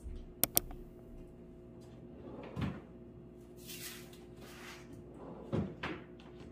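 Kitchen cabinet being opened and rummaged: two sharp clicks just after the start, a knock, a rustling swish, then two more knocks near the end.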